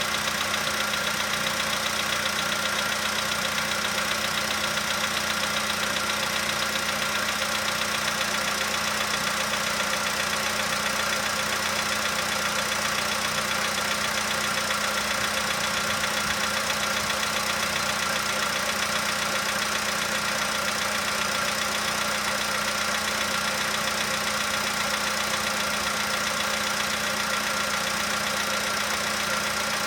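Volkswagen Polo Sedan's 1.6 petrol engine idling steadily after a cold start, with a knock that is fading but still present as the engine warms up. The knock comes only when the engine is cold; the owner, unsure, puts it down to a hydraulic lifter.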